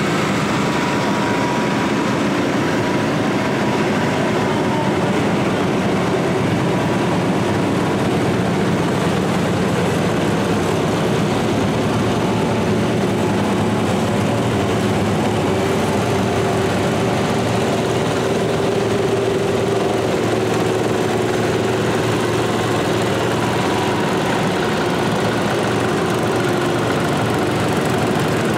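A line of garden tractors driving slowly past one after another, their small engines running together in a steady, even mix.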